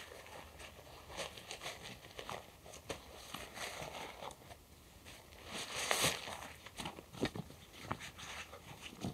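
Rustling and small clicks of a backpack and gear being handled by hand, fabric and plastic rustling irregularly, with a louder, longer rustle about six seconds in.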